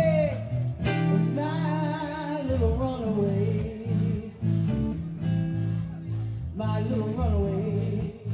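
Live band music: singing over electric guitar, bass and drums, playing continuously.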